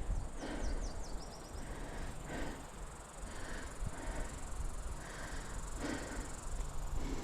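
A hiker's footsteps on a rocky trail, about one step a second, with low wind rumble on the microphone. A short high bird song of quick falling notes and a rapid trill sounds in the first second and a half.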